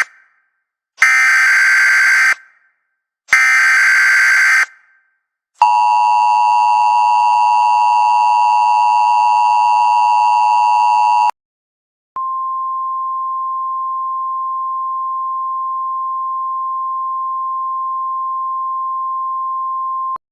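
Emergency Alert System tones. First come two short bursts of the SAME digital header, a harsh buzzing data sound. Then the two-tone attention signal sounds for about six seconds. After a brief pause, a single steady tone runs for about eight seconds.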